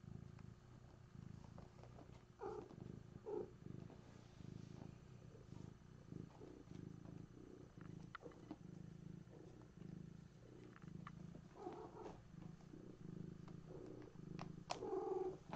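Domestic cat purring steadily, with a few brief higher-pitched sounds over it, the loudest near the end, and scattered small clicks.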